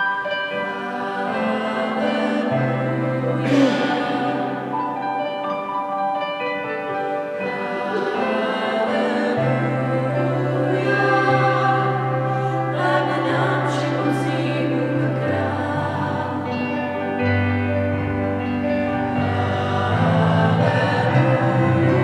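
Four women's voices singing a song in harmony, accompanied by a Korg electronic keyboard holding long low chord notes that change every few seconds.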